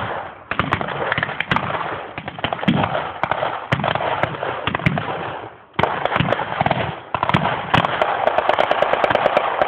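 Mock-battle gunfire: many rifles and machine guns firing blanks in a dense, overlapping crackle of shots, with a brief lull a little over halfway through.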